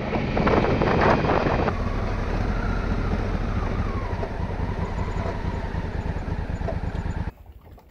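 Adventure motorcycle, a Honda Africa Twin parallel twin, running steadily under way, with a louder rushing noise in the first second or two. The sound cuts off suddenly about seven seconds in.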